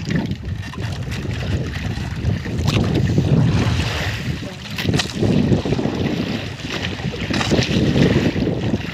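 Wind buffeting the microphone over water washing against a small outrigger boat's hull, with a few scattered knocks and rustles as a monofilament longline is hauled in by hand.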